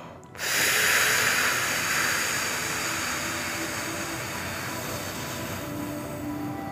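A woman's long, forceful exhale on an "fff" sound, breath hissing through the lips. It starts about half a second in and slowly fades over some six seconds as she empties her lungs. This is the core-breath exhale, in which the abdomen is drawn in and the pelvic floor lifts.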